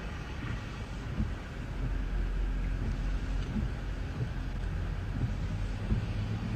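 Wind buffeting an outdoor phone microphone over a steady low rumble, getting a little louder about two seconds in.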